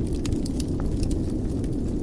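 Fire in a fireplace crackling: irregular sharp pops and snaps over a steady low rumble.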